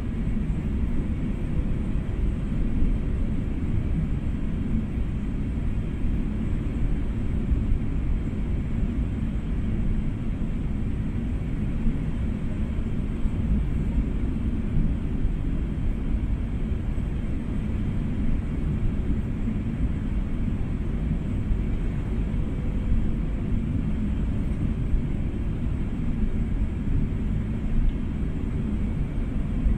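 Cabin noise inside an Airbus A380 airliner: a steady low rumble of engines and rushing air, with no bumps or changes.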